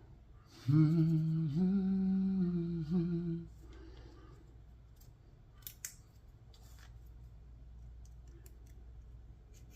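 A man humming a few held notes to himself for about three seconds, followed by a couple of faint clicks.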